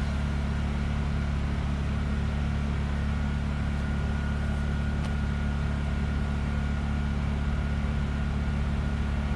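A steady low mechanical hum, even throughout, with a faint high steady tone coming in about two seconds in.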